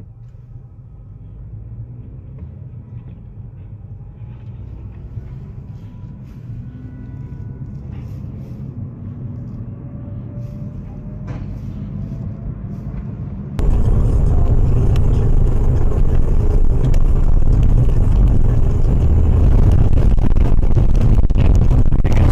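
A car's engine pulling and rising steadily in pitch over a low rumble. About two-thirds of the way through it gives way abruptly to loud, steady rushing road and wind noise.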